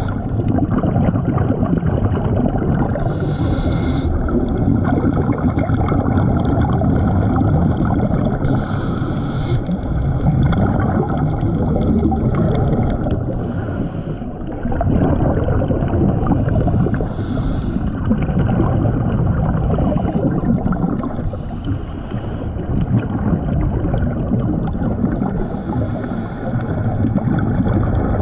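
Scuba diver's regulator breathing, heard underwater: a short hissing inhalation every several seconds, between long stretches of rumbling, gurgling exhaled bubbles.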